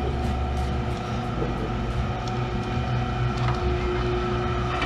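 Drill press running and drilling the corners of a flat aluminium plate, a steady machine hum.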